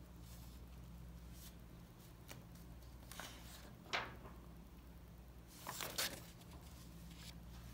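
Paper pages of a printed workbook handled and turned: a few soft rustles, a sharp crackle about four seconds in, and a louder rustle near six seconds as the page flips over, above a low steady hum.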